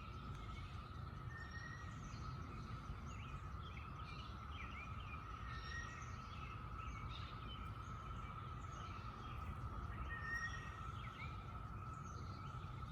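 A chorus of cicadas making a steady, unbroken drone that sounds mechanical. Birds chirp briefly now and then over it.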